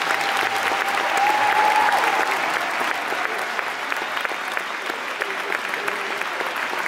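Arena audience applauding steadily as an ice dance free dance ends, a dense sound of many hands clapping. A faint held tone fades out in the first two seconds.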